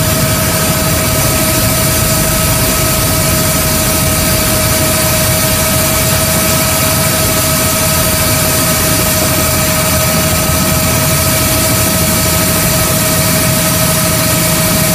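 Helicopter cabin noise as it descends to land: a steady turbine whine at two fixed pitches over a loud, constant rotor and engine rumble.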